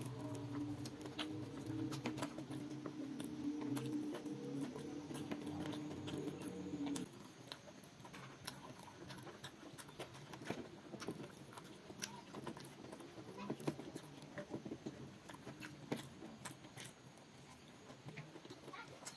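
Eating by hand: fingers working rice and stir-fried water spinach on a glass plate, with chewing and mouth sounds as small scattered clicks. A steady low hum runs under the first seven seconds and stops suddenly.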